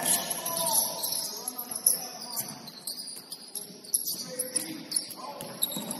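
Basketball game on an indoor court: repeated high, chirping sneaker squeaks on the hardwood floor, with a few sharp knocks.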